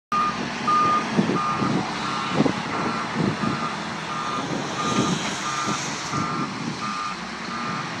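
Backup alarm of a wheel loader fitted with a snow plow blade, beeping steadily about one and a half times a second as it reverses, over its diesel engine running.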